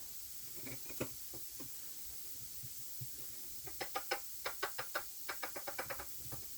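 Light metallic clicks and knocks from hand tools working the end cover off a Gardner 2LW diesel engine's crankcase. A few come singly at first, then a quick run of about five a second starts about halfway through.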